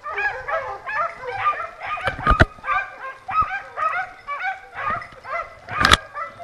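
A pack of scent hounds baying in rapid, overlapping voices, giving tongue on a wild boar hunt. Two sharp, louder knocks cut through the baying, one a little over two seconds in and one near the end.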